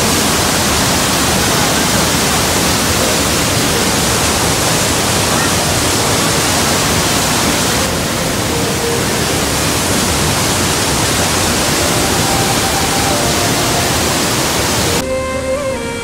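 Rhine Falls' white water rushing over the rocks, a loud, dense, steady roar of falling water. About a second before the end it cuts off sharply and violin music takes over.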